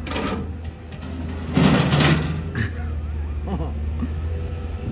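An engine running steadily with a low hum, with a loud rushing noise about a second and a half in.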